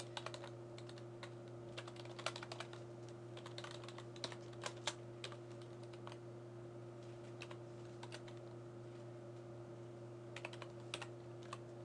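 Computer keyboard being typed on: quick runs of key clicks with short pauses between them, over a steady low hum.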